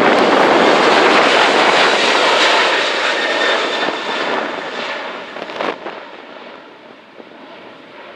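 An aircraft passing close by with its engines loud, a faint whine in the noise, then dying away over the second half.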